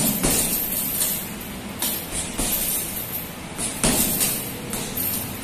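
Boxing gloves striking a hanging heavy bag in an uneven string of punches, the sharpest hit right at the start.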